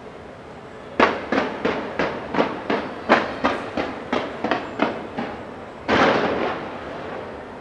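Fireworks display going off: after about a second, a quick run of roughly fourteen sharp bangs, three or four a second, then a single longer, wider burst about six seconds in.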